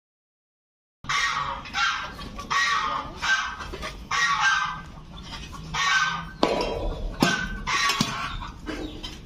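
Domestic geese honking over and over, starting about a second in, with a few sharp knocks in the second half.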